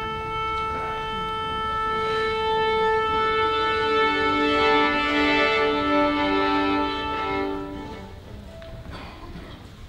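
Symphony orchestra holding long sustained notes: one steady pitch from the start, with lower notes joining about four seconds in, all stopping at about eight seconds.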